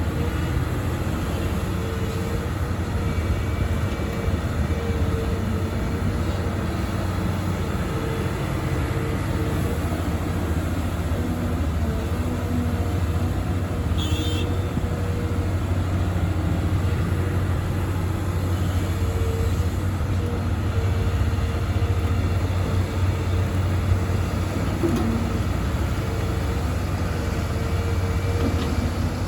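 Heavy diesel machinery running steadily: a Volvo EC300E excavator's engine and hydraulics working while loading dump trucks, with a mid-pitched tone that comes and goes. A brief high squeal about halfway through.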